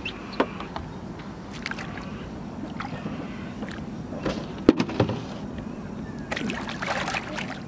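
Water sloshing and splashing as a barramundi is held in the river beside a boat and released, with a few sharp knocks scattered through it and a burst of splashing near the end.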